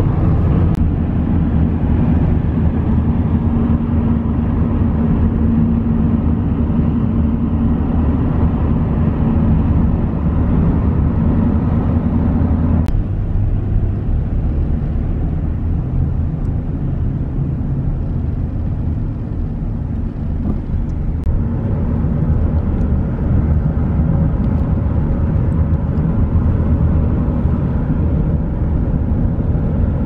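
Road noise of a moving car heard from inside the cabin: a steady low rumble, which changes abruptly in tone about thirteen seconds in.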